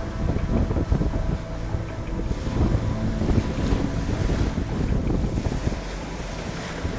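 Wind buffeting the microphone over big waves breaking on the shore, with a faint steady hum underneath.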